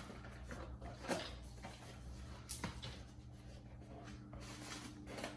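Handling of a boxed product and its carrying case: a few light knocks and clicks in the first few seconds, with soft rustling between them, over a steady low electrical hum.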